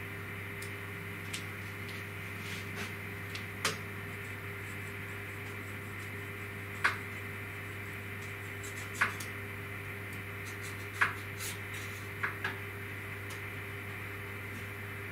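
Steady electrical hum with a handful of sharp single clicks a second or two apart: keys tapped on the laptop that controls the CNC router.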